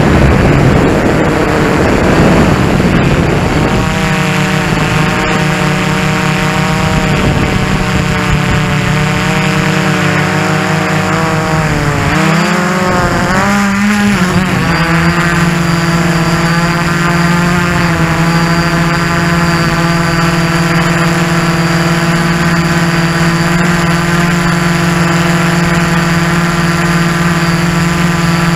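DJI Flamewheel F450 quadcopter's brushless motors and propellers droning, heard from a camera on the quadcopter itself. A rush of wind dominates the first few seconds. The drone's pitch wavers and dips near the middle, then holds steady.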